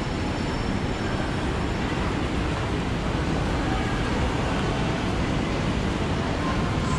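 Steady low rumble of the background noise in a large indoor transit concourse, even throughout with no distinct events.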